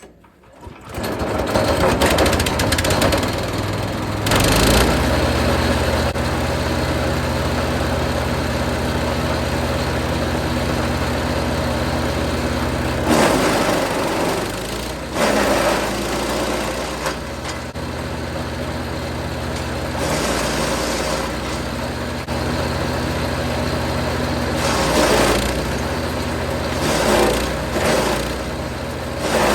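Jansen 1500e GTS wood chipper running at speed, starting abruptly about a second in, with several short louder surges of noise as material goes through the chipper.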